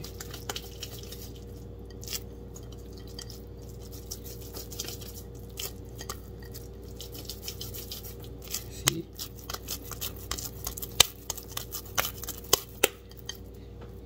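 Wet hands rolling and patting a ball of semolina fufu, making soft sticky clicks and pats that come faster and louder in the second half, over a steady low hum.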